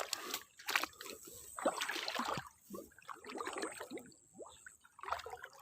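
Water sloshing and trickling in irregular splashes as a small fish trap is handled and lifted in the water.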